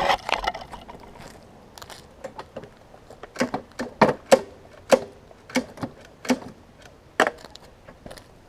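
MTD push mower being handled: the blade-control bail is pulled back, then the recoil starter rope is tugged repeatedly, each pull stopping short with a sharp clunk. The blade is jammed against the handle, which is still in its storage position, so the engine feels locked up.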